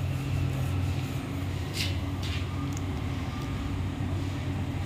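Steady low hum throughout, with two light metallic clicks about two seconds in from hand work on the bolts of a clutch motor's clutch plate.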